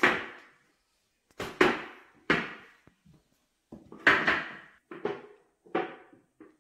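A series of about eight sharp knocks, each with a short ringing tail, as small plastic children's chairs are bumped and moved about on a hard floor. The loudest comes right at the start, with clusters about a second and a half, four seconds and six seconds in.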